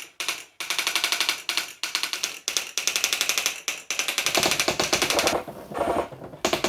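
Olivetti ET Personal 55 daisywheel electric typewriter printing its built-in demo text by itself: fast runs of strikes, about ten a second, broken by short pauses and a longer lull near the end.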